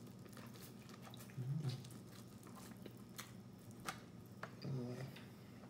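Close-miked chewing and mouth sounds of someone eating: soft wet smacks and small clicks. Two short closed-mouth hums of enjoyment come about a second and a half in and near the end.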